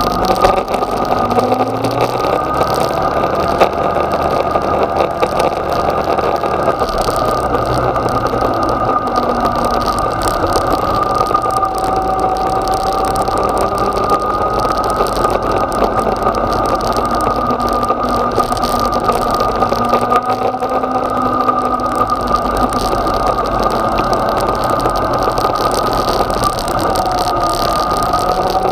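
Yamaha XJ6's inline-four engine running at low road speed and gentle revs, with road and wind noise and a steady high whine over it.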